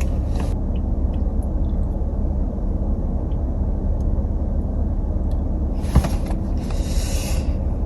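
Steady low rumble of a car heard from inside the cabin. There is a sharp knock about six seconds in, followed by a brief rustling hiss.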